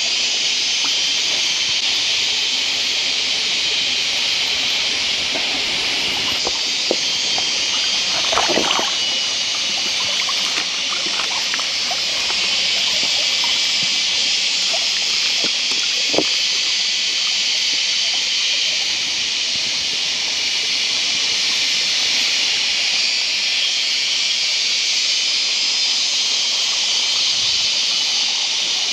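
Hands splashing and rummaging among stones in a shallow forest stream, with a louder splash about eight seconds in and a sharp knock near sixteen seconds, over the steady hiss of the running stream.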